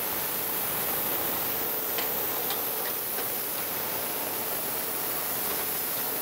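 Surface grinder wheel lightly grinding the steel top of a magnetic chuck: a steady hiss with a few faint ticks. This is a very light finishing pass on a freshly dressed wheel, just touching down to its first sparks.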